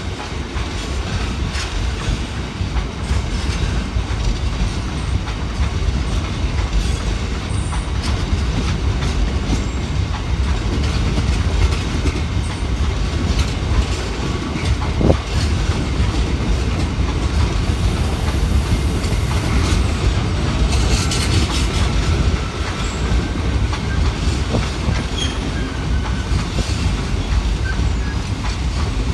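Slow-moving freight train of empty-looking DB Cargo open box wagons rolling past: a steady low rumble of wheels with irregular clicks and clunks over the rail joints. A spell of high-pitched wheel squeal comes about two-thirds of the way through.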